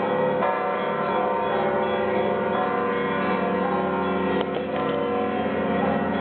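Orthodox monastery bells ringing together in a continuous peal, many bells of different pitches overlapping without a break.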